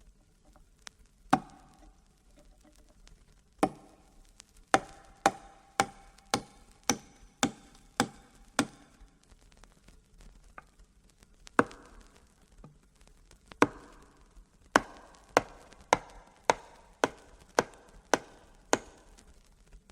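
A sound effect of sharp, ringing blows struck one at a time: a single blow, then two runs of several blows about two a second with a pause between them.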